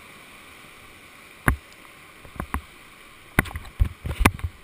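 Whitewater rapids rushing steadily around a paddle raft. Sharp knocks and thumps cut through it: one about a second and a half in, two more around two and a half seconds, then several in quick succession near the end.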